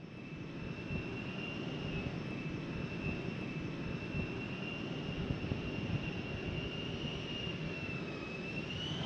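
F-35C Lightning II's F135 turbofan on approach, heard from afar: a steady low rumble under a high engine whine that wavers slightly and rises near the end, growing gently louder.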